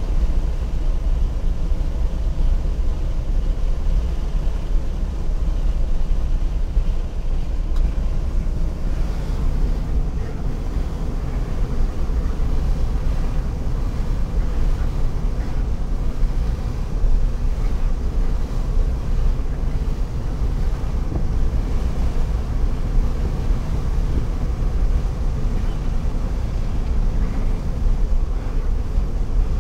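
Wind rushing in through an open car window at driving speed, buffeting the microphone, over the low rumble of the moving car.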